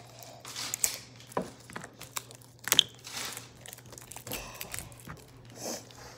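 Craft materials being handled: scattered crinkling and rustling of paper and tape with light clicks and knocks, the sharpest about three seconds in.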